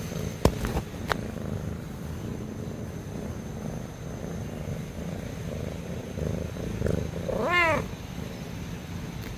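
Domestic cat snoring, a steady low rumble. A few sharp clicks come about half a second in, and about seven and a half seconds in a short call rises and falls in pitch.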